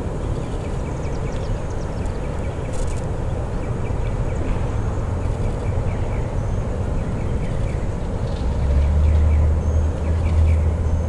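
Diesel locomotive at the head of a freight train approaching: a steady low engine rumble that grows louder about eight seconds in. Faint bird chirps sound over it.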